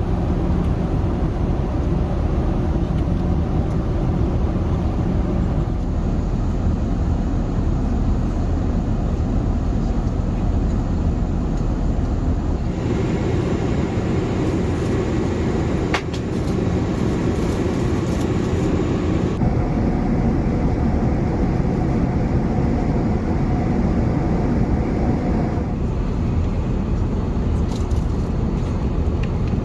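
Steady cabin noise of an Airbus A380 in cruise: a continuous low rush of engines and airflow, its tone shifting abruptly every several seconds, with one short click about halfway through.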